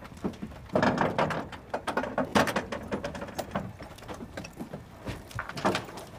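Irregular metallic clicks, knocks and rattles of pilots climbing out of a parked jet's open cockpit onto the boarding ladders, with gear, buckles and boots striking the ladders and airframe; busiest in the first couple of seconds.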